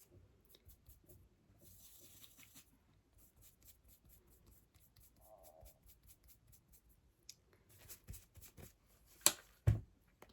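Faint handling sounds of eye makeup being applied: soft brush strokes and small ticks, with two sharper clicks near the end.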